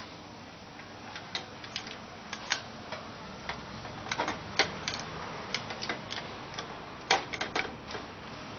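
Irregular sharp clicks and taps, small hard parts or a tool being handled, a few to the second, in loose clusters with the strongest around the middle and again near the end.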